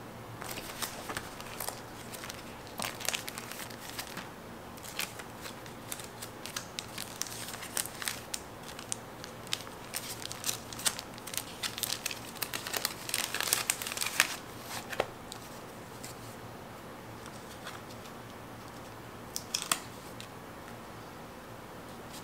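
Paper planner stickers and sticker sheets being handled at close range: a run of small crinkles, crackles and ticks as stickers are peeled and pressed down, easing off after about fifteen seconds, with a short cluster of crackles near the end.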